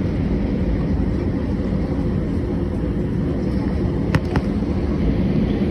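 Steady low rumble of an Airbus A319 taxiing, engines and airframe heard from inside the passenger cabin, with two short clicks about four seconds in.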